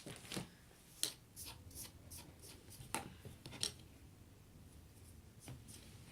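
Kinetic sand being scooped and worked by hand, a series of short, gritty scrapes and rubs spaced irregularly, most of them in the first four seconds.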